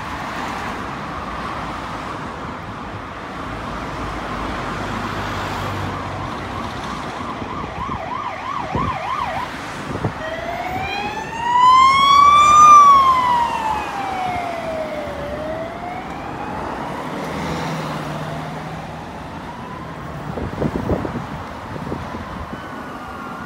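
Unmarked police car's siren on an emergency run. It comes in with a fast yelp, then switches to a slow rising and falling wail that is loudest as the car passes about halfway through, then fades. Steady city traffic runs underneath.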